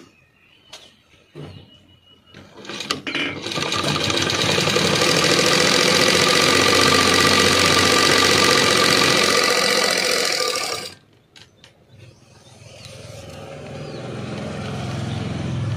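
Sewing machine running steadily for about seven seconds as it stitches a seam, starting about three seconds in after a few clicks of handling the cloth and machine, and stopping abruptly. A low hum then builds up toward the end.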